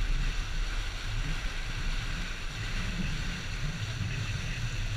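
Wind buffeting an action camera's microphone over the steady rush of water spraying past an inflatable banana boat towed at speed across the sea.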